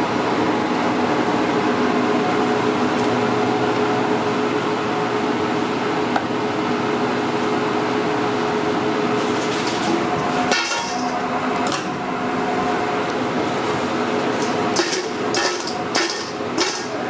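Steady fan hum of kitchen equipment, with scattered crisp clatters from about ten seconds in and a burst of rattling near the end as blue corn tortilla chips are tossed in a stainless steel bowl.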